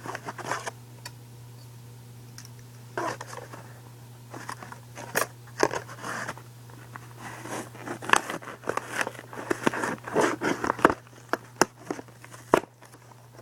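Plastic toy packaging being forced open by hand: irregular crinkling and crackling with sharp snapping clicks.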